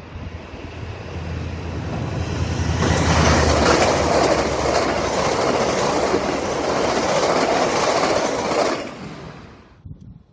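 A diesel-electric locomotive passes close by hauling passenger coaches. First its engine drone grows louder as it approaches. Then for about six seconds the coaches rush past with loud wheel-on-rail noise, which fades away near the end.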